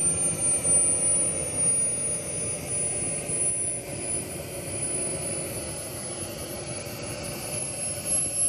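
Small gas turbine engine of an HSD J-10A RC model jet running at idle: a steady rush with a thin, very high whine that creeps slightly upward in pitch.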